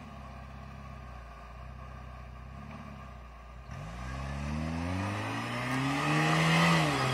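Jeep Wrangler's engine running low, then revving hard about four seconds in, its pitch climbing and holding high as it charges up a soft sand slope, and easing off near the end.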